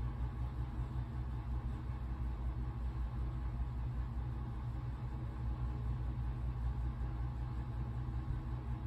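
Steady low rumble of background noise, with no other events standing out.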